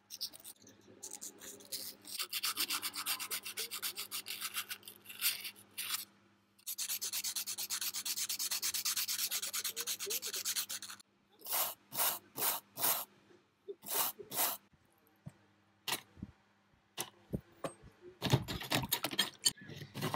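Hand abrasive work on the steel of a vintage vernier caliper: rapid back-and-forth rubbing strokes, then a handful of slower separate strokes, thinning out to occasional scrapes near the end.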